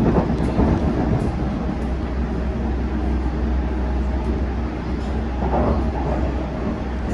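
Interior of a Metropolitan line S8 Stock Underground train running at speed: a steady low rumble of wheels and motors in the carriage, with a few light clicks.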